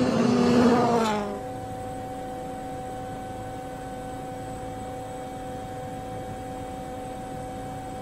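Hyundai i20 N Rally1 rally car passing at speed, its engine note loud and falling in pitch, cut off after about a second. A steady, quieter hum with even overtones follows.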